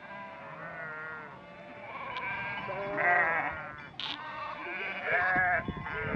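A large flock of sheep bleating, many calls overlapping, loudest about three seconds in and again after five seconds.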